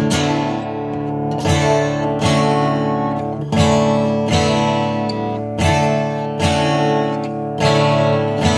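Steel-string acoustic guitar strummed in a steady pattern, a chord stroke about once a second with the chords ringing on between strokes.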